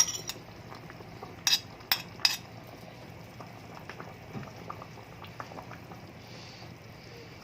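Pot of water and meat at a boil, bubbling steadily, just after frozen peas and carrots go in. A few sharp metal clinks of a utensil against the pot in the first couple of seconds.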